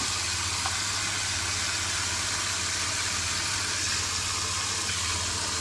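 Kitchen tap running a spray of water into a stainless steel bowl of small fish, filling it: a steady hiss of water.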